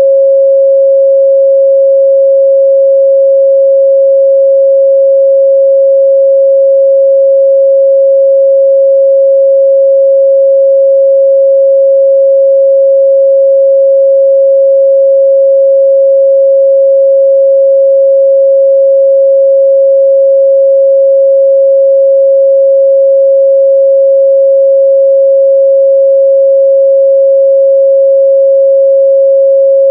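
A steady, loud pure 545 Hz sine-wave test tone, one unwavering pitch with no breaks.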